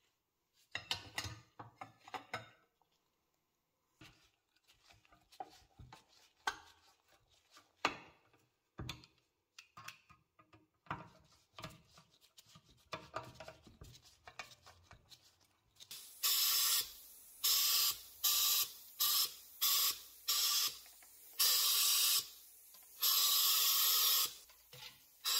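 Small clicks and scrapes of a screwdriver bit driving the little screws that hold the dial to a cast-iron scale. About two-thirds in come about ten short, loud spray hisses, a coat being sprayed onto the scale's pointer needle.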